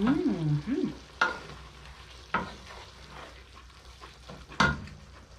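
Spoon stirring in a cooking pot of vegetable stew, knocking sharply against the pot three times, over a faint steady sizzle. A short hummed "mmm" comes at the start.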